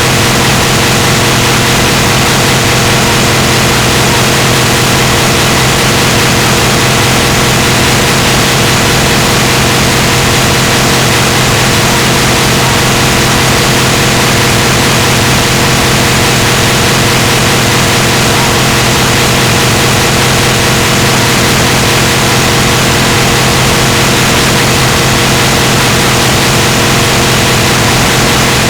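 Loud, unchanging vehicle drone: a steady hum under a strong hiss, with no change in pitch or level.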